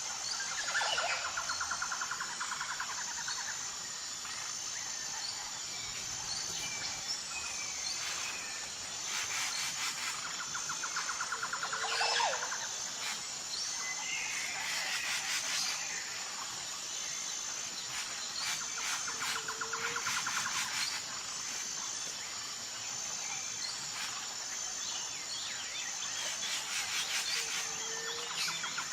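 Birds singing over a steady, high insect trill. One bird repeats a rapid trilled song about every eight or nine seconds, with short chirps and calls from other birds in between.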